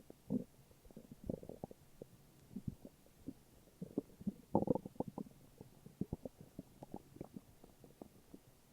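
Human stomach and intestines gurgling and rumbling in a string of short, irregular gurgles and pops, with a louder, longer gurgle about four and a half seconds in.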